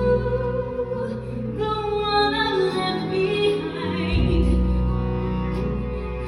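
Live musical-theatre music: a voice sings long held notes over sustained band accompaniment with a steady low bass.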